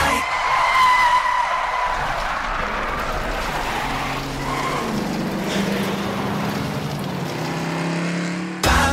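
A car sound effect: a high, steady tyre squeal for the first two seconds, then an engine whose pitch climbs. It cuts off abruptly near the end as pop music comes back in.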